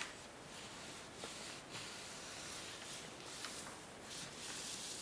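Faint soft rubbing of a small encaustic painting iron gliding over melted beeswax on card, with a few light ticks.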